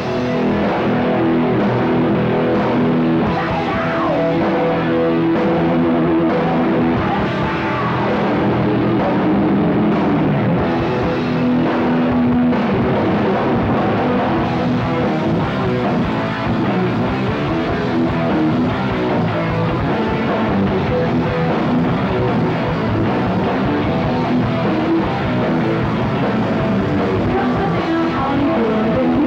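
Rock band playing live, with electric guitars over a drum kit, loud and steady.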